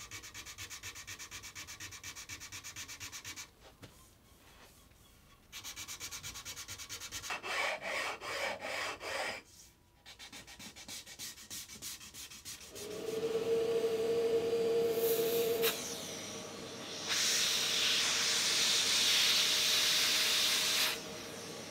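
Sandpaper rubbed by hand along the chamfered edge of a wooden cutting board, in runs of quick strokes with short pauses: the final fine-grit sanding. In the last third a vacuum runs with a steady whine and hiss, its nozzle drawn along the board's edge to suck up the sanding dust.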